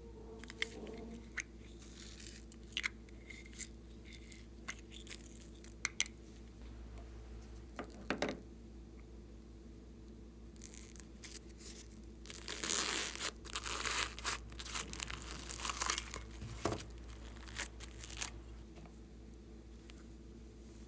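Hands working glossy slime: scattered sticky clicks and pops, then a denser stretch of crackling about twelve seconds in that lasts a few seconds.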